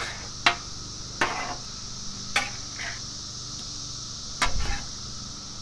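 Metal spatula scraping and knocking on the steel top of a Blackstone griddle while tossing chicken wings in sauce: five or six short, sharp scrapes spaced irregularly, the loudest with a dull thump about four and a half seconds in. A steady high cicada drone runs underneath.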